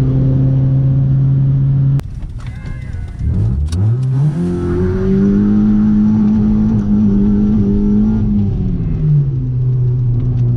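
Hyundai Accent engine running at a steady note, then after an abrupt cut its speed climbs over about two seconds, holds high for several seconds, and drops back to the earlier steady note near the end.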